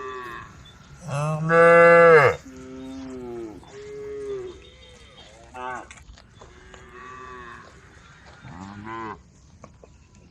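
A group of cows mooing in turn, calling to the herd. One long, loud, low moo comes about a second in, followed by several shorter, quieter, higher-pitched moos.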